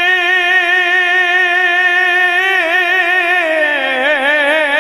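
A man singing a devotional Punjabi verse into a microphone, holding one long note. The note is steady at first, then about halfway through it breaks into quick wavering ornaments, dips lower and climbs back.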